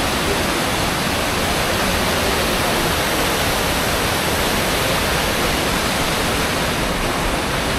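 Steady rushing of a fast mountain river, the Yamuna running close by: an even, unbroken roar of water.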